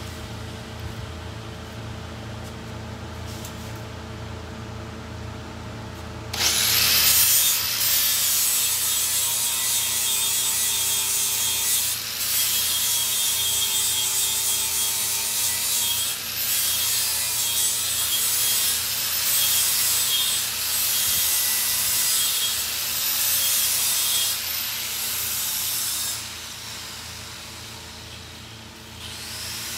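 A tool working on material: a loud, steady rasping starts suddenly about six seconds in, dipping slightly every few seconds, and falls away near the end. Before it there is a low steady hum.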